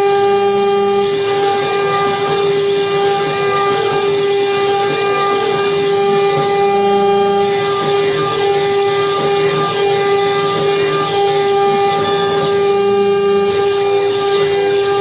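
Mini CNC machine cutting MDF: its spindle runs with a steady high whine over the noise of the bit in the board. The sound shifts slightly about every six seconds as the cut moves along.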